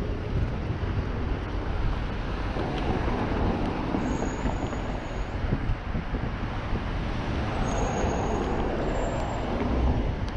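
Steady city traffic noise heard from a moving bicycle, with wind rumbling on the microphone.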